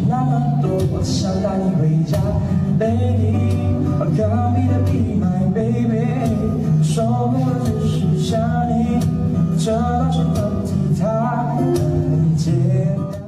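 A male voice singing a slow pop song to a strummed acoustic guitar.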